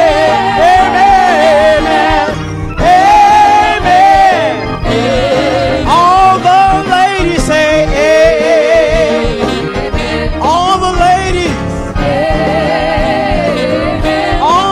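A woman singing a gospel song through a microphone over instrumental accompaniment. She sings long held notes with heavy vibrato and melodic runs.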